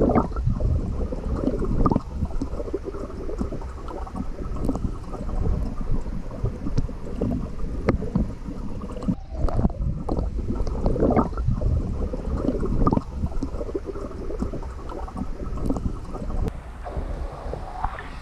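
Pool water sloshing and gurgling, heard muffled from below the surface, as a German shepherd paddles through it.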